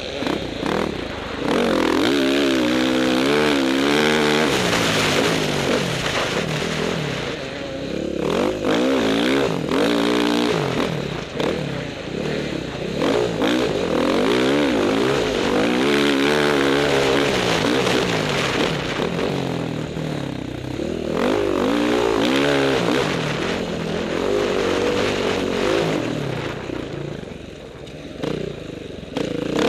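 Off-road motorcycle engine, heard from on the bike, revving up and dropping back again and again as it rides a rutted dirt trail. It eases off and goes quieter near the end.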